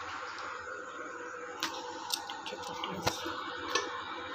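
Induction cooktop running with a steady electrical hum under a saucepan of tea water, with a few sharp clicks scattered through it.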